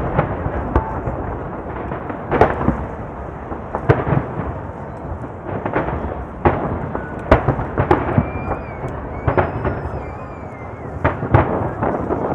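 Aerial fireworks shells bursting in quick, uneven succession: about ten sharp booms, with a continuous rumble between them. A few thin whistling glides rise and fall near the middle and toward the end.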